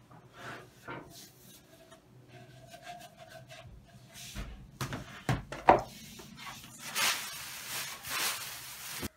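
A round pine column being handled on a wooden workbench: scattered wooden knocks and rubbing, with two sharp knocks a little after halfway. Longer scraping strokes follow near the end, then the sound cuts off suddenly.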